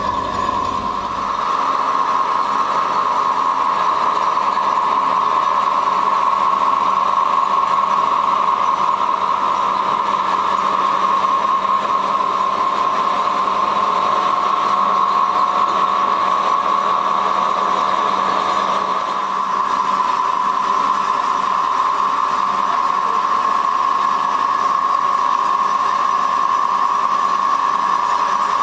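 Steady drone of machinery running, with a constant high hum over a noisy wash; a lower part of the drone drops out about two-thirds of the way through.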